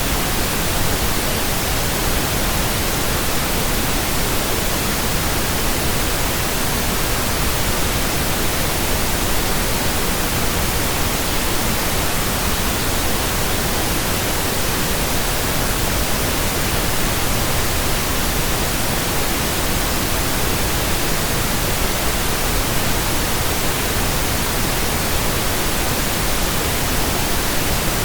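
Steady synthetic pink noise: an even hiss with no tone, rhythm or change in it.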